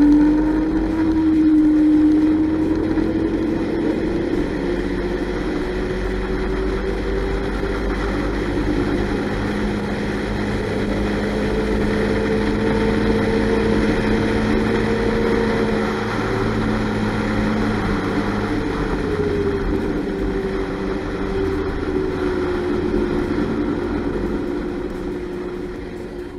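Honda Forza 300 scooter's single-cylinder engine running at road speed, heard from on board with wind noise; its drone rises and falls gently with the throttle.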